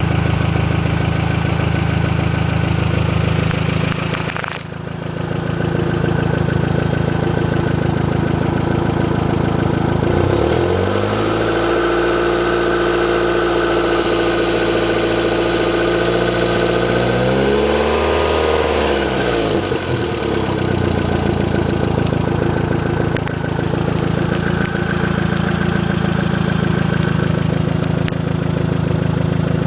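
Toyota MR2 Turbo's 3S-GTE turbocharged four-cylinder engine idling steadily, then revved up about a third of the way in, held for several seconds and let fall back to idle. The engine is being run to check for a suspected exhaust leak.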